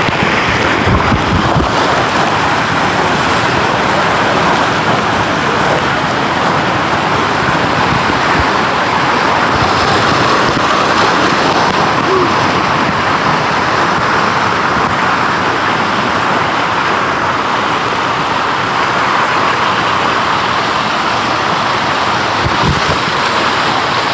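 Waterfall's rushing water: a loud, steady rush of falling water.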